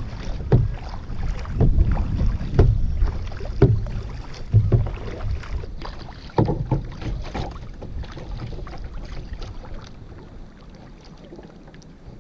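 Paddle strokes splashing in the water, roughly one a second, over wind on the microphone; the strokes die away about seven seconds in, leaving softer water and wind noise.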